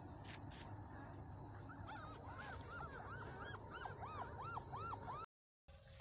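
Newborn puppies whimpering: a run of short, high, rising-and-falling cries, about three a second, starting about two seconds in and cutting off suddenly near the end, over a faint low rumble.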